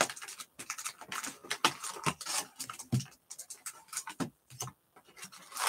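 Cardboard trading-card hobby box being opened and its foil-wrapped packs handled and slid out: a busy run of irregular rustles, scrapes and small taps.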